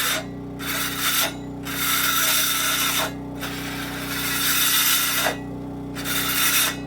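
Saw cutting through cured spray foam insulation in about five rasping strokes of uneven length, from half a second to nearly two seconds, with short pauses between.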